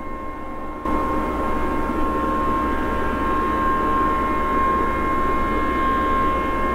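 A steady, unexplained droning hum made of several held tones over a hiss, which jumps louder about a second in and then stays even. It is the so-called mystery sound or 'skyquake' that the recorder says could be a gigantic generator or a huge air-conditioning system.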